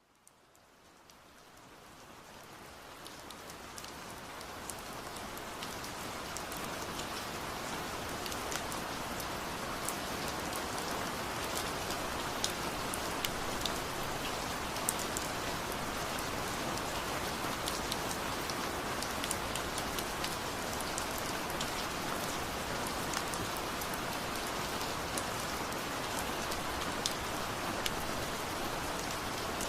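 Waterfall: a steady rush of falling water with scattered sharp splashes of drops. It fades in from silence over the first several seconds, then holds steady.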